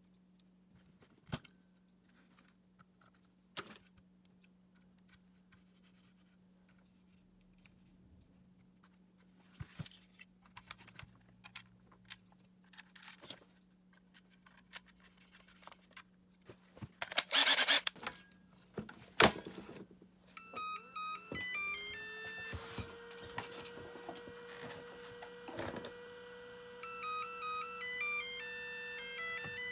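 Scattered clicks and knocks of handling, a short loud rushing burst about seventeen seconds in, then a small motor spinning up and running steadily to the end, with stepping electronic beep-like tones over it.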